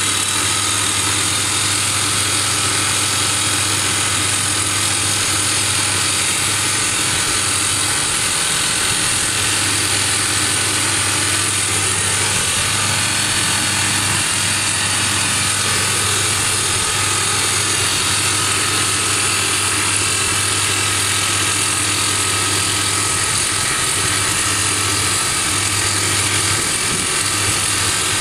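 SOOSAN STD14E crawler top-hammer drill rig running: its engine hums under the steady, rapid hammering of the TD45 hydraulic drifter driving the drill steel into rock.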